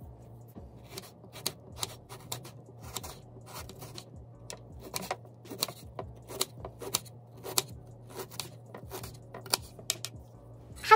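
Kitchen knife chopping on a cutting board: quick, uneven taps, a few a second, as green bell pepper and then red onion are diced.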